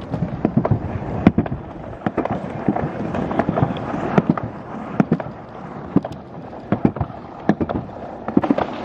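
Alpine-slide sled running fast down its trough track: a steady rumble broken by many quick, irregular clacks and knocks.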